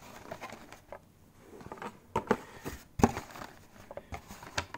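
Clear plastic packaging tray and cardboard box being handled: scattered light taps, clicks and crinkles, the sharpest about three seconds in.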